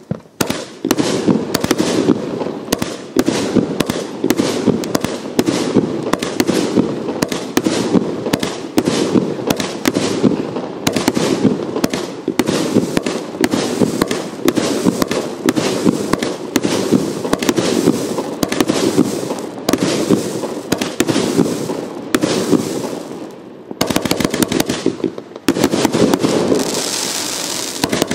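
Hallmark Paradox 50-shot firework cake firing: a rapid, continuous string of shots and aerial bursts. The firing eases into a short lull a little before the end, then picks up again.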